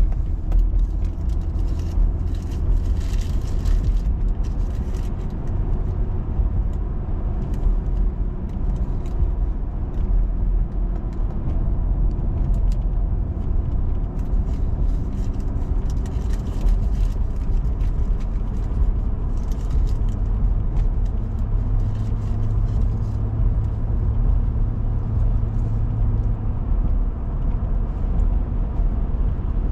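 A car driving along a road: a steady low rumble of engine and tyre noise. A steadier low hum comes in for several seconds past the middle.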